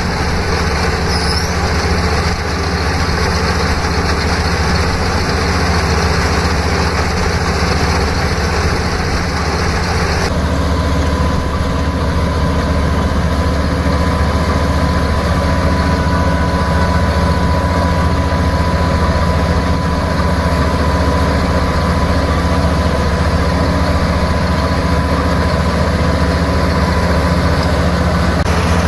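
Rice combine harvester's engine running steadily with a low drone. About ten seconds in the sound changes abruptly, the hiss dropping and a faint steady whine coming in.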